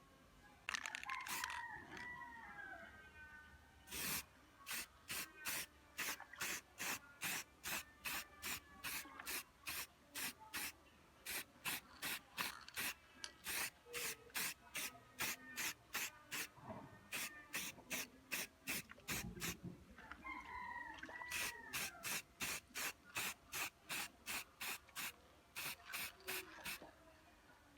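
Aerosol spray-paint can fired in short hissing bursts, about two a second, with a few brief pauses. A bird calls twice in the background, about a second in and again near the middle-to-late part.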